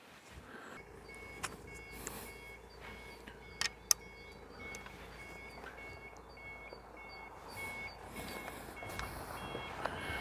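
A vehicle's reversing alarm beeping over and over at a steady pace, with a low engine rumble under it and a few sharp knocks.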